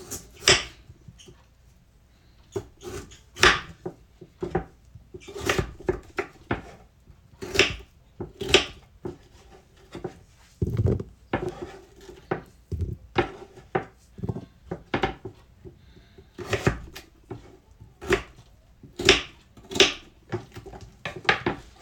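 Kitchen knife cutting a peeled potato into cubes on a wooden cutting board: irregular knocks of the blade striking the board, with short pauses between runs of cuts.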